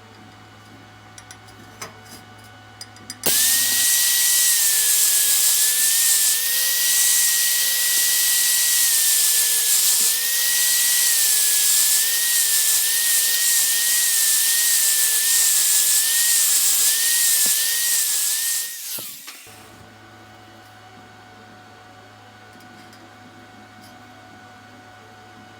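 Angle grinder running for about fifteen seconds, its whine wavering and dipping slightly as it is pressed into the work, grinding the weld seam on a steel profile tube flush. It starts abruptly and winds down near the end.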